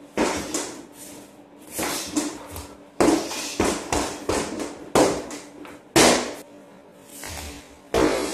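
Punches and knees landing on a freestanding punching bag: sharp, irregular thuds about once a second, some in quick pairs, each with a short room echo.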